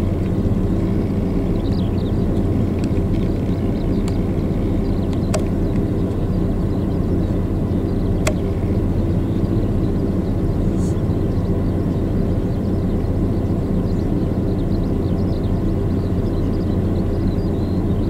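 Steady low hum of an idling engine, with two sharp clicks about five and eight seconds in.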